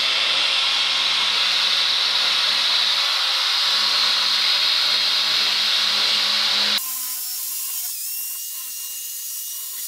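Electric drill spinning a conical carbide burr against the water-jacket edges of a cylinder head, a loud harsh grinding as it cuts away oxide and crack edges. About seven seconds in the sound drops abruptly to a quieter, steady whine.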